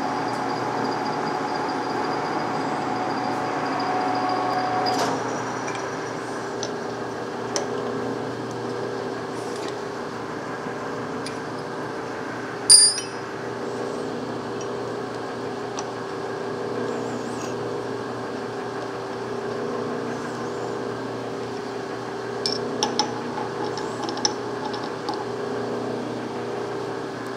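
Metal lathe running while a drill bit in the tailstock chuck bores into a spinning part, its running tones stopping about five seconds in. After that a steady hum continues under sharp metallic clinks: the drill chuck and drill bits being handled and changed, with one loud ringing clink about halfway through and a cluster of smaller clinks near the end.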